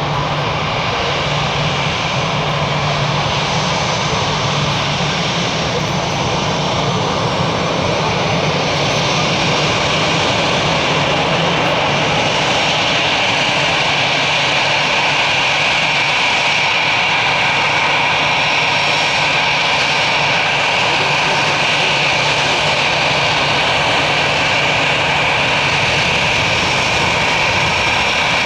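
Airbus A320 jet engines and airflow heard from inside the passenger cabin: a steady, loud rush with a low hum beneath it. A higher whine grows stronger about halfway through and the whole sound gets slightly louder.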